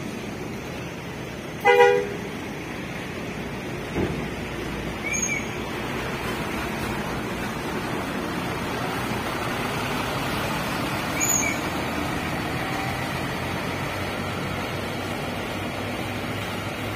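A coach bus's horn gives one short toot about two seconds in, then the bus's engine runs steadily as it pulls away.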